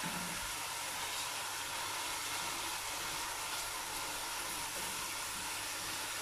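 Finely chopped onions frying in oil in a stainless steel pot: a steady sizzling hiss.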